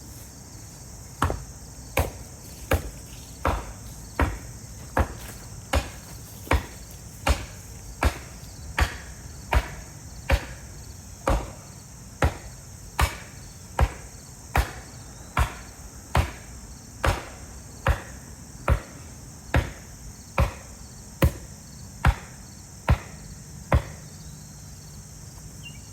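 About thirty steady hammer blows, a little more than one a second, driving a fastener into pallet wood, over the constant high chirring of crickets.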